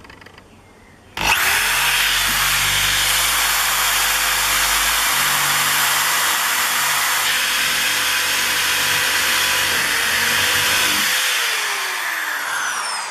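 DeWalt drill with a wood auger bit boring a hole through a timber rail. It starts about a second in, runs at a steady speed, and winds down near the end with a falling pitch.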